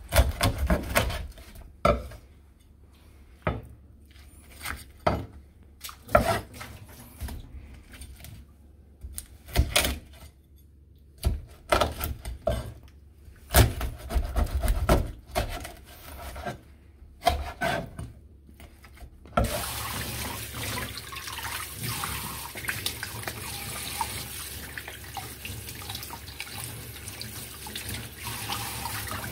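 A kitchen knife cutting into a bigeye fish on a plastic cutting board, making irregular sharp knocks and scrapes with quiet gaps between them. About two-thirds of the way in, a tap starts running steadily, splashing into a bowl in a stainless-steel sink as the fish is rinsed.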